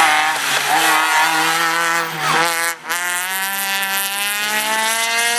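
Rally car engines running at high revs, the note shifting through gear changes. A little past halfway the sound briefly drops out, then another rally car's engine climbs steadily in pitch as it accelerates.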